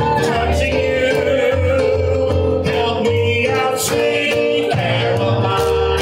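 Live piano-bar music: a singer at an amplified keyboard, played through PA speakers, with sung melody over a steady bass line.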